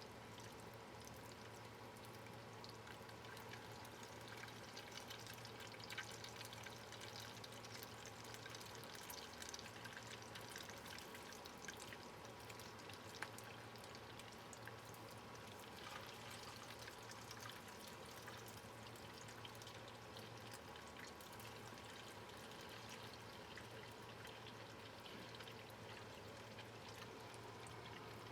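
Faint steady sizzling from food cooking in a pan, with scattered small crackles over a low steady hum.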